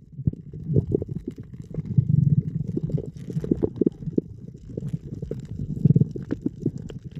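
Muffled underwater rumble heard through a camera's waterproof housing, with irregular soft knocks throughout.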